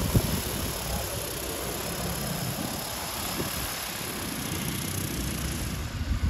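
DJI Agras T50 spray drone in flight, its rotors making a steady whirring noise over a low, uneven rumble.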